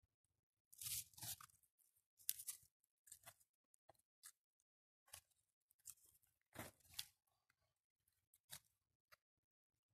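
Dry twigs, needles and leaf litter crackling and rustling as a hand clears them away from mushrooms on the forest floor, in irregular short bursts of crunching with gaps of silence between.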